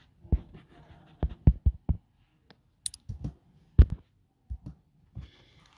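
Irregular clicks and low thumps from working a computer's mouse and keys, about a dozen in a few seconds, the loudest just before the four-second mark.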